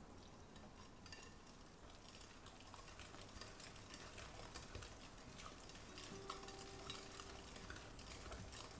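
Faint, light clinks and stirring of kitchen utensils in a bowl. Soft music with held notes comes in about six seconds in.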